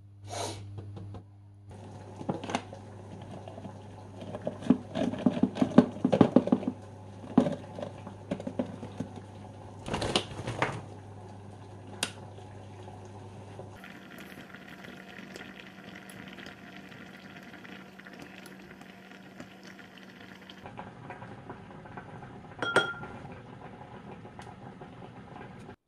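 Kitchen cooking sounds: pots, dishes and utensils clattering and knocking, then a steady hiss of a pot of water on the boil for the noodles, with a single sharp clink near the end.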